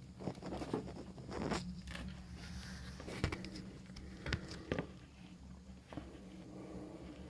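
Scattered rustling and a few soft clicks over a low steady hum.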